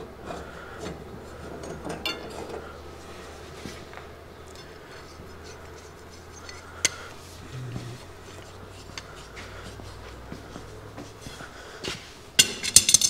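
Metal tools and parts clinking and knocking: scattered light clicks, one sharper click about seven seconds in, then a quick run of sharp metallic clinks near the end.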